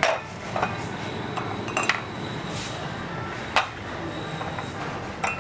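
Ceramic teacups and saucers clinking on a tray as they are set down and arranged, about five short sharp clinks, the loudest at the start and about three and a half seconds in.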